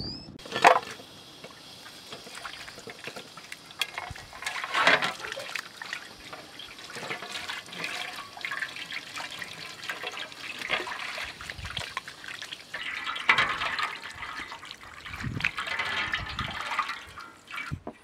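Water poured over a rack of raw lamb ribs as they are rinsed by hand, splashing and trickling unevenly onto a metal tray. A single sharp knock sounds near the start.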